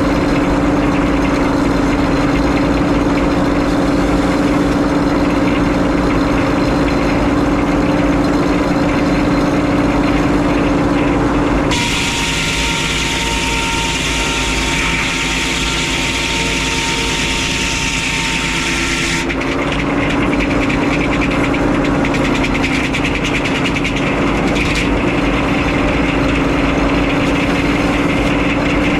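Frick 01-C circular sawmill and its power unit running steadily. From about 12 to 19 seconds in, a harsher, higher noise with a thin, slightly falling whine takes over as the blade cuts through a loblolly pine log. The steady running then returns.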